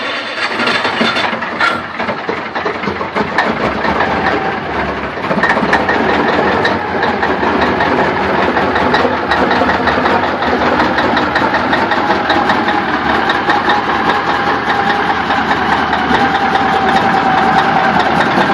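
Old Peterbilt dump truck's diesel engine running just after a cold start, uneven for the first few seconds and then settling into a steady idle while its stacks smoke.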